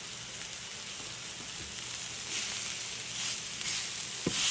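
Venison steaks sizzling in a hot cast iron skillet, with a steady hiss that grows louder about two seconds in. A single knock of the spatula against the pan comes near the end as the steaks are pushed around.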